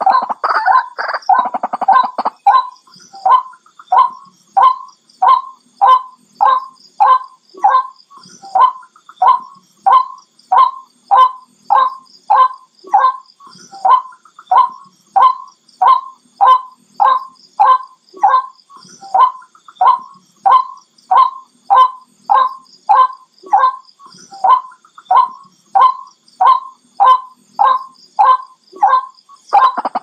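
White-breasted waterhen calling: a jumble of overlapping croaking notes for the first couple of seconds, then a long, monotonous run of single loud notes repeated about twice a second, breaking back into a jumble near the end.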